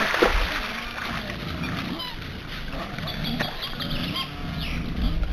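Wild boar grunting repeatedly in low, short calls while wallowing in a muddy pool. About three seconds in comes a quick run of short high chirps.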